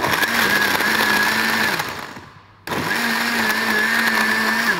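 Espressions Multi Blender Square running its cocktail program, blending frozen berries and orange juice in its glass jar. The motor runs at a steady high speed for nearly two seconds and winds down, then starts again abruptly about two and a half seconds in. These stops and starts are the program's timed intervals.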